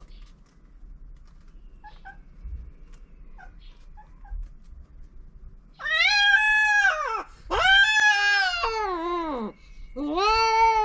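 Cat yowling during mating: three long, loud wails from about halfway in, each sliding down in pitch as it ends, the last still going at the close.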